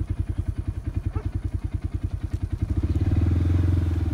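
Vehicle engine running at low speed with an even, rapid pulsing, getting louder and heavier about three seconds in.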